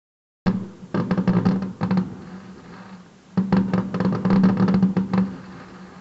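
Percussion music: two loud bursts of rapid drumming over a low held tone, the first about half a second in and the second a little past the middle, each dying away afterwards.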